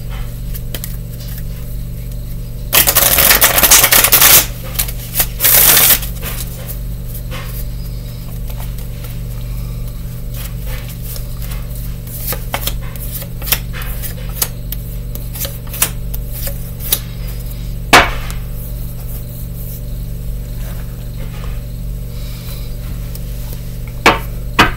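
Tarot cards shuffled by hand: a loud riffle about three seconds in and a shorter one near six seconds, then quieter handling of the deck with scattered light clicks and one sharp snap of cards at about eighteen seconds, over a steady low hum.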